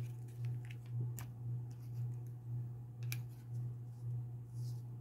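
Small clicks and taps of a hot sauce bottle and its cap being handled and shaken out. A steady low hum that swells and fades about twice a second runs underneath.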